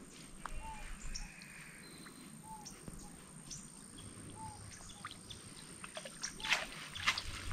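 A bird repeating a short arched call every second or two over quiet outdoor ambience. A few crunching steps or rustles in vegetation come near the end.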